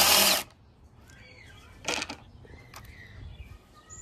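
Cordless drill/driver with a socket running in a short loud burst as it backs a bolt out of a car seat's side hinge, stopping about half a second in. A light knock follows about two seconds in.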